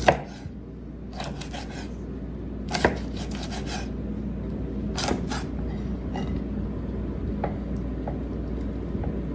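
Knife slicing through crispy fried pork belly on a wooden cutting board: an uneven series of crunches as the crisp skin breaks, and taps as the blade meets the board.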